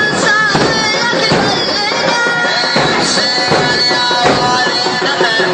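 A man chanting a Muharram mourning elegy in Arabic, his voice wavering in pitch, over rhythmic beats that recur through the chant.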